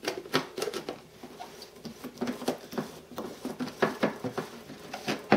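Plastic twist-on lid of a Mighty Mixer shaker bottle being screwed on by hand, with a string of irregular light clicks and taps of plastic on plastic.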